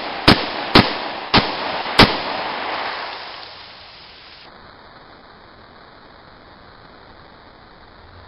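Four pistol shots from a .45 automatic chambered in .400 Cor-Bon, fired about half a second apart, with echo dying away over a couple of seconds after the last one.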